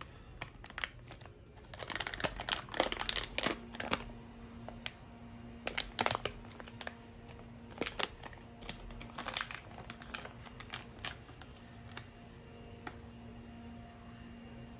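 Crinkly plastic snack bag crackling as it is handled and squeezed in the hands, in irregular bursts that stop about twelve seconds in.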